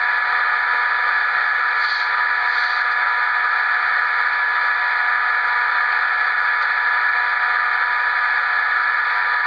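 HO-scale LokSound Select sound decoder playing an EMD F40PH prime mover in HEP mode, held at notch 8, through a small 28mm speaker. It is a steady engine drone that does not change, with little bass.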